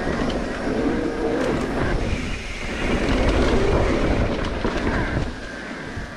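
Mountain bike riding over a bumpy dirt singletrack: a steady rumble of tyres on dirt and a rattle of the bike, easing off somewhat near the end.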